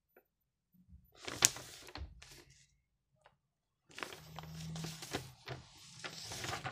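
A single thunk about a second and a half in. From about four seconds on, a school notebook is handled and its paper pages rustle as they are leafed through.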